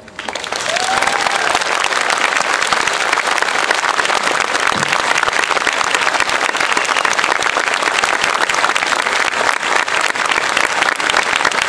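Audience applauding: dense, steady clapping that starts as the band's last note dies away.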